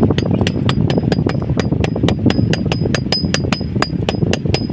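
Blacksmith's hammer striking iron on an anvil in a fast, even rhythm of about four blows a second, each blow leaving a short metallic ring. A steady low rumble runs underneath.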